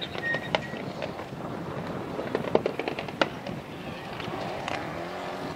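Rally car running on a loose gravel stage, heard at a distance, with a scatter of sharp cracks. The loudest cluster comes about two and a half seconds in.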